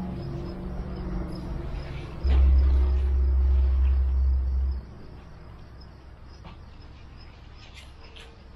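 Insects chirping steadily in an even, rapid rhythm. A low rumble rises suddenly a little over two seconds in and cuts off about two and a half seconds later.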